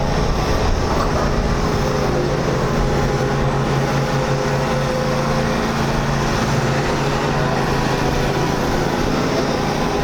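Big-block V8 engine of a classic muscle car running at a steady idle, with an even, unchanging exhaust rumble.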